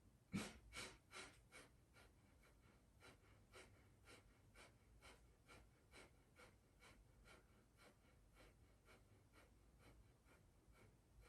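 Kapalbhati breathing: short, forceful exhalations through the nose, about two a second. The first few are louder, the rest faint.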